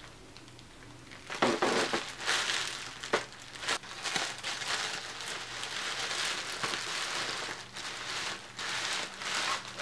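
Plastic bubble wrap crinkling and rustling as it is handled and unwrapped from a doll, starting about a second in after a brief quiet stretch.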